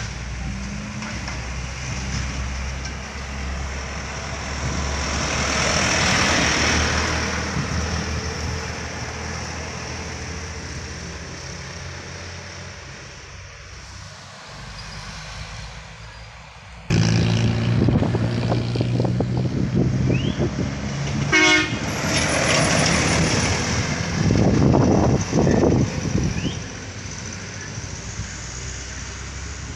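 Heavy road vehicles climbing and passing on a hill road, their diesel engines running loudly. One passes about six seconds in. Then, about seventeen seconds in, a much louder engine starts suddenly, close by, with a short sharp blast a few seconds later.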